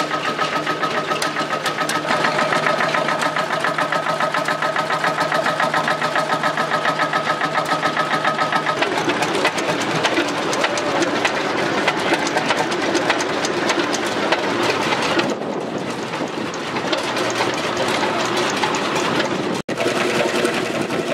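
Vintage hot-bulb engines running at slow speed, each with a rapid, even exhaust beat of several strokes a second. The beat changes from one engine to another about nine seconds in and again near the end.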